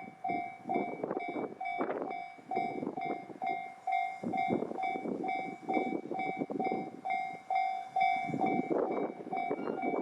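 Japanese railway level-crossing warning bell ringing, a repeated electronic ding about two and a half times a second, over an uneven rushing noise.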